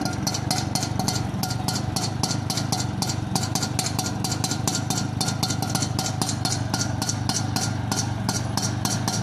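Vespacar three-wheeler rickshaw engine running steadily at idle, with a sharp, even ticking of about four to five clicks a second over the engine note.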